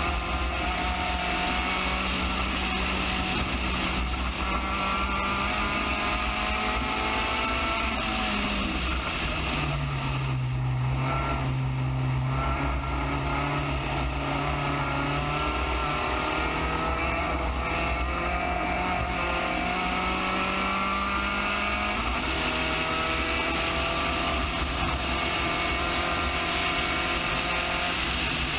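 Spec Racer Ford GEN3's four-cylinder engine running hard on track, heard from the open cockpit with wind and road noise. Its pitch drops about a third of the way in and stays lower for several seconds, then climbs again, and falls quickly right at the end.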